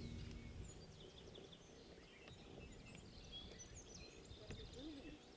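Faint natural outdoor ambience with scattered short high bird chirps and a brief trill a little past the middle, as the last of a song's music dies away at the start.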